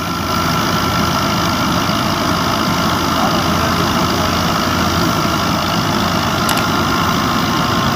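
New Holland Fiat 640 tractor's diesel engine running steadily under load, powering a wheat thresher through its PTO, mixed with the thresher's drum and workings running.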